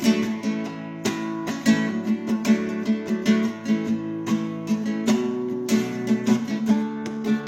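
Acoustic guitar strummed in a steady rhythm, a song's instrumental intro.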